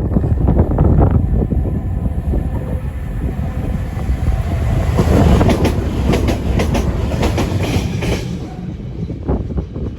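Nuclear flask freight train running past: a steady heavy rumble of wagon wheels on the rails, with a run of rapid clicks from wheels crossing rail joints around the middle, easing off near the end.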